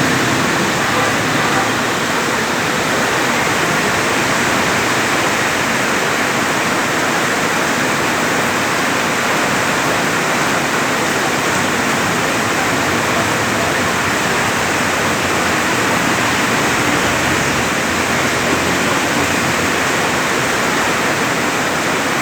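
Heavy rain pouring down as a steady, unbroken hiss.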